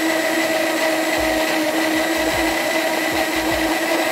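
Cuisinart digital blender's motor running steadily at high speed, a constant whine, with a few dull low thumps underneath.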